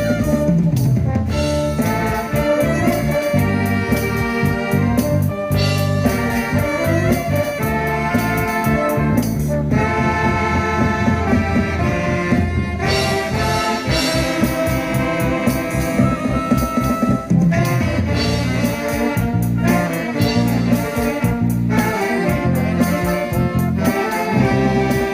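An amateur ensemble playing instrumental music live, with sustained melody notes over a steady, rhythmic bass line.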